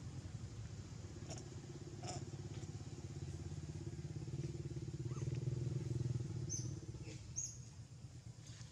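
A motor vehicle engine hum, growing louder to a peak about six seconds in and then fading away. A few short, high chirps come near the end.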